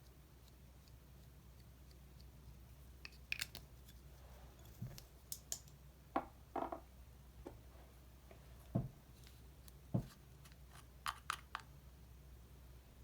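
Scattered sharp clicks, snaps and taps from hands handling makeup pieces and containers for slime mixing, with two louder low knocks about nine and ten seconds in, over a faint steady low hum.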